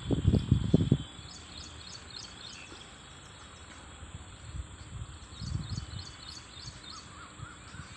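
Outdoor ambience with small birds chirping in quick runs of short, high notes, about five a second, in two bouts. In the first second there are loud low rumbles like wind buffeting the microphone.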